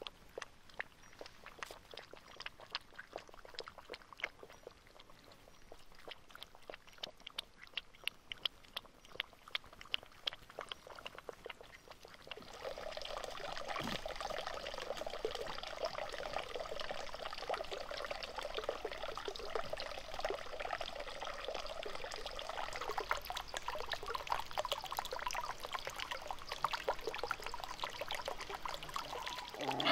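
Puppies lapping water, a quick run of small wet clicks, for roughly the first twelve seconds; then water from a bamboo spout trickles and pours steadily into a small pond.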